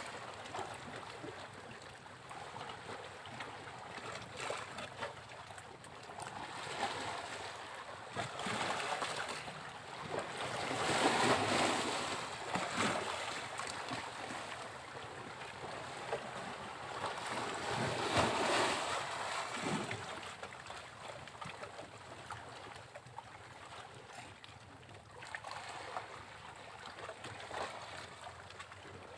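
Sea waves breaking on a beach and washing back, a steady surf hiss that swells as each wave crashes, with the two biggest breakers about a third and two thirds of the way through.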